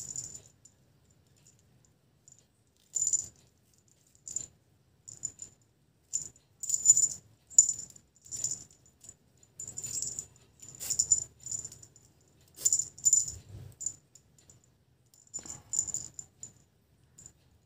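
Small jingle bell on a cat collar jingling in short, irregular bursts as the collar is turned and handled, with quiet gaps between.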